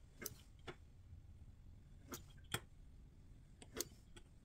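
Faint scattered clicks and taps of a metal pizza-cutter wheel rolling through a thin sheet of dough on a wooden board, about seven in all, the loudest about two and a half seconds in.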